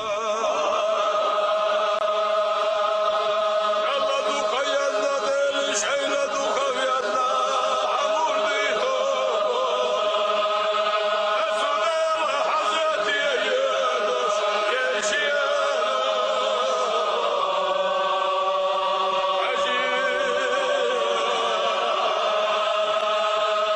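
A group of men chanting in unison in a Chechen Sufi zikr circle, many voices holding long, steady notes together.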